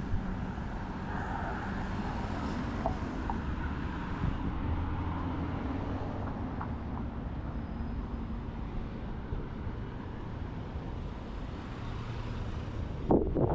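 Steady city street traffic: cars and other vehicles running past, with a brief louder sound near the end.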